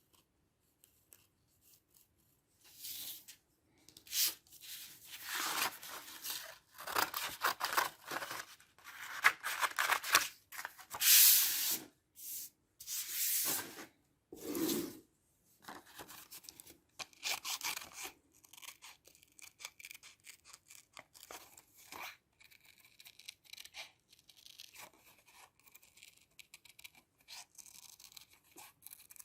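Paper being handled: a run of loud, scratchy rustling and tearing strokes, then lighter rubbing and scratching for the second half.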